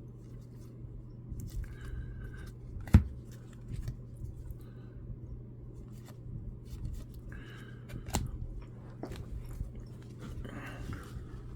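Baseball trading cards and foil pack wrappers being handled and shuffled, with soft rustles and small clicks and a low steady hum. A sharp knock about three seconds in, as of a card stack or pack set down on the table, and a smaller one near eight seconds.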